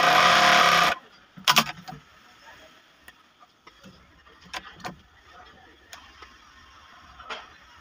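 Industrial flatlock sewing machine running at speed through a seam, stopping abruptly about a second in. A sharp double click follows shortly after, then a few faint clicks as the fabric is pulled from under the presser foot.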